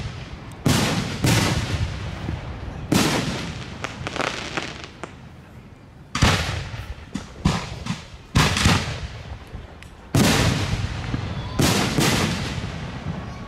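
Aerial firework shells bursting, with a sharp bang every one to three seconds, about nine in all. Each bang trails off in an echo that dies away over a second or two.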